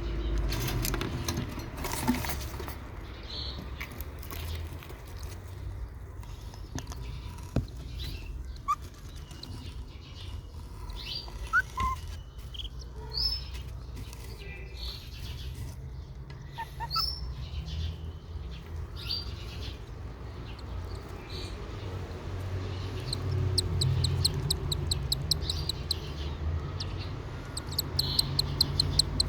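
A week-old cockatiel chick making scattered short, high peeps, then a fast run of calls at about ten a second in the last few seconds, over a steady low hum.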